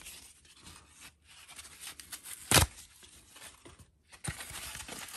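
Moulded paper-pulp drink carrier being torn apart by hand: rough tearing and rustling of the cardboard, with one short, loud crack about two and a half seconds in.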